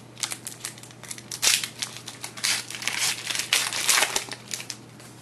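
Wrapper of a trading card pack being torn open and crinkled: a run of irregular crackles and rustles lasting about four and a half seconds, loudest in the middle and near the end.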